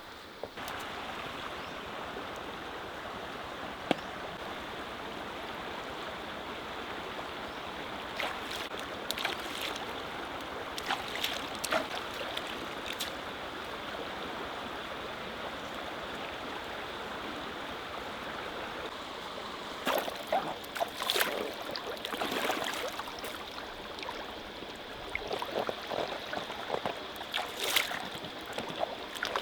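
Stream water running steadily, with scattered short knocks and clatter from handling things, a cluster about ten seconds in and more from about twenty seconds on.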